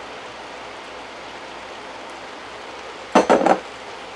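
Steady hiss of steak and vegetables sizzling in a pan on an induction cooktop. About three seconds in, a brief clatter of three or four quick knocks as the glass mixing bowl is set down on the wooden board.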